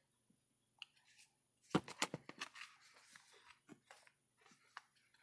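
Stiff art cards and their cardboard box being handled as the cards go back into the box: a cluster of sharp clicks and rustling about two seconds in, then scattered lighter ticks and sliding.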